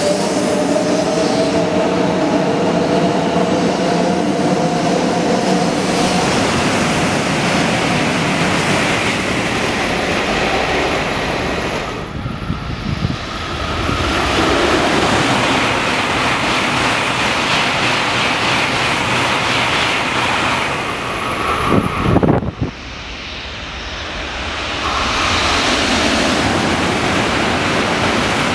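Shinkansen bullet trains rushing past on the platform tracks: a loud, steady roar of air and wheels on rail. In the first several seconds it carries a whine of traction motors that slowly falls in pitch. The sound breaks off abruptly twice, as separate passes are cut together, and near the end a loud roar builds as another train shoots through at speed.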